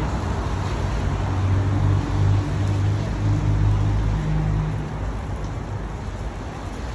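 Low, steady engine hum of an unseen motor vehicle, swelling for a few seconds and then fading, over a wash of general street noise.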